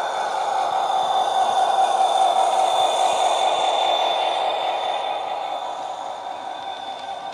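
Sound-fitted model Class 66 diesel locomotive playing its DCC diesel engine sound through a 25x25x7 megabass speaker as it runs past, a steady drone with a thin high whine over it. It fades over the last couple of seconds as the locomotive moves away.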